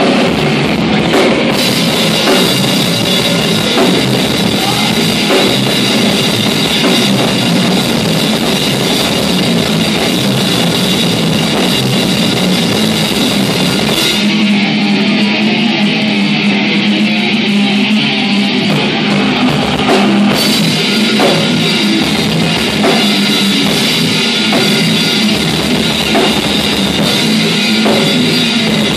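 Live band playing loud rock: electric guitar over a drum kit. A little past halfway the cymbals and kick drum drop out for about four seconds, leaving the guitar, then the drums come back in.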